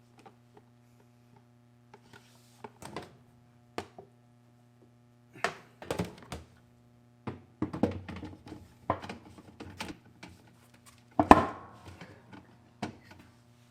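Irregular clicks and knocks of tools and parts being handled during reassembly of a top-load washing machine, the loudest knock about 11 seconds in, over a steady low electrical hum.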